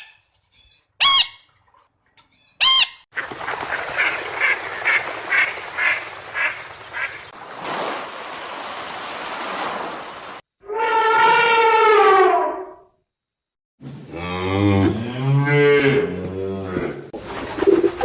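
A sequence of different animal calls, edited back to back with short silent gaps. First come two short calls, then a run of about eight quick evenly spaced calls, a stretch of hissing noise, one long call falling slightly in pitch, and a deep, wavering call near the end.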